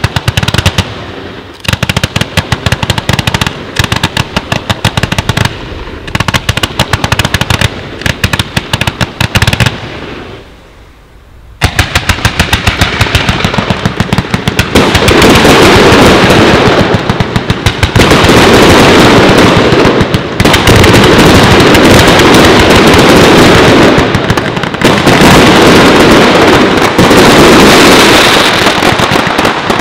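Fireworks batteries firing volleys of shots and bangs in rapid succession. There is a brief lull about ten seconds in, then a denser, louder barrage.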